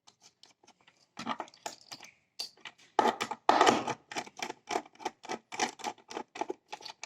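Irregular clicking and clattering of metal battery-cable terminals and wires being handled and fastened to an e-rickshaw controller's leads, sparse at first and growing busier about three seconds in.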